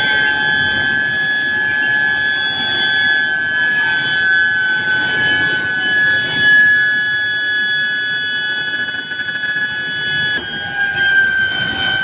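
Steel billet induction heating furnace whining with a steady high-pitched tone, its coils running at their working frequency, over the rumble of the roller conveyor line; the pitch dips slightly near the end.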